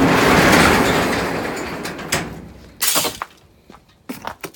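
Garage door being opened by hand, a loud rattle that fades over about two seconds, then a second shorter clatter about three seconds in and a few light knocks.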